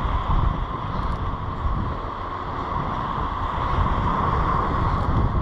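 Wind buffeting the microphone in a steady, gusty rumble, over small waves washing up a sandy beach.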